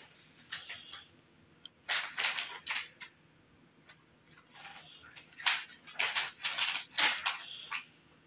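Gift wrapping paper rustling and crinkling as a wrapped present is handled and turned over, in several short bursts, busiest in the second half.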